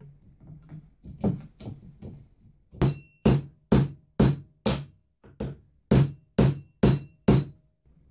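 Hammer blows driving steel railway spikes into an oak board: a few lighter knocks, then about ten sharp, evenly spaced strikes roughly two a second, each with a short ring.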